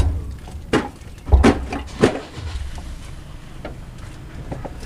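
A few sharp clicks and knocks, three or four in the first two seconds, from hands working the fuel line fittings under a car. A steady low hum runs underneath.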